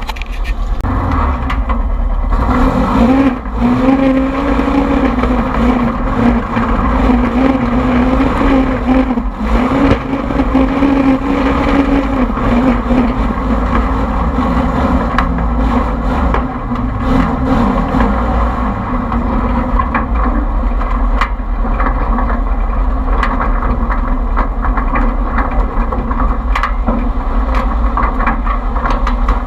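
Polaris RZR side-by-side's engine running under load over rough off-road ground, heard from inside the cab, with a steady engine note strongest in the first half and frequent knocks and clatter from the chassis.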